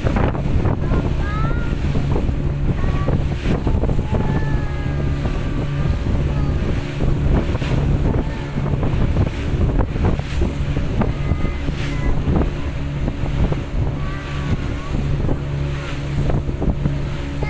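Motorboat engine running at a steady drone, with wind on the microphone and water noise. Short high chirps sound here and there over it.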